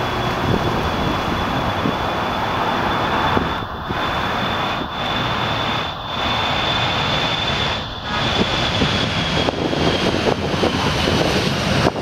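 Boeing 737-400's CFM56 turbofan engines running: a loud steady rushing noise with a high, even whine that fades about ten seconds in.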